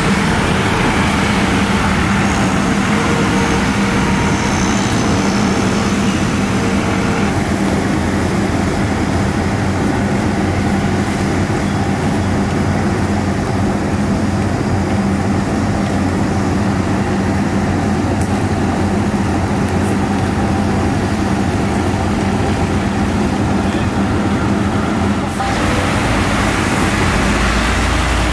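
Steady, loud vehicle and engine rumble with a low hum, like traffic or an aircraft's engines running; about three-quarters of the way through it suddenly turns brighter and hissier.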